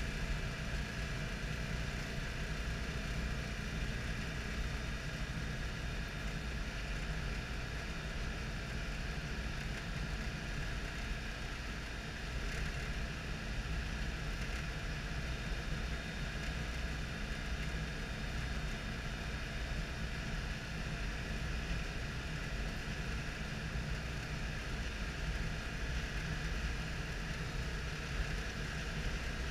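The air-cooled 602 cc flat-twin engine of a 1972 Citroën Dyane 6 running steadily at cruising speed, heard from inside the cabin together with road noise.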